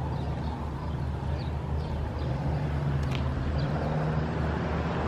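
Motor vehicle engine running, a steady low hum of road traffic, with a few faint short high chirps over it.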